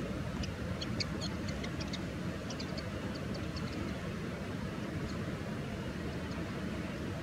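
Steady low wind-like rumble, with a quick run of short high chirps during the first few seconds and a few fainter ones later.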